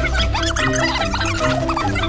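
Background music with a repeating bass line and short chirpy high notes over it.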